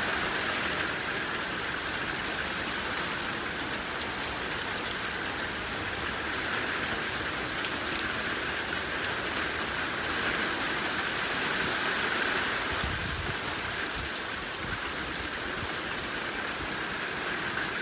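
Rain pouring down steadily in a thunderstorm, an even hiss of heavy rainfall on surfaces.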